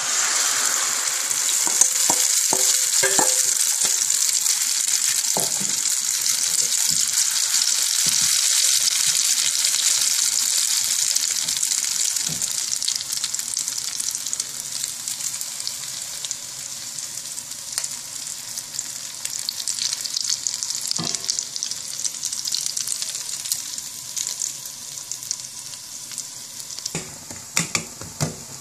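Omelette egg mixture sizzling in hot oil in a frying pan, loud at first just after being poured in, with fine crackling, then slowly dying down as the egg sets. Near the end a metal spatula knocks and scrapes against the pan a few times.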